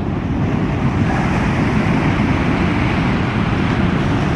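Steady low rumble of ocean surf breaking and washing in, with wind buffeting the microphone.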